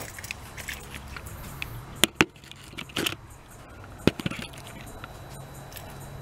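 A few separate sharp clicks and knocks, with a light jingle of keys, over a steady low hum.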